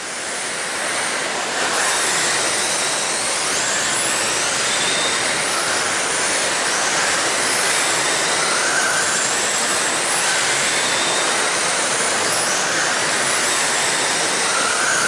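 Several electric RC sprint cars with 13.5-turn brushless motors racing on dirt: a steady hiss of motors and tyres with high motor whines that rise in pitch again and again.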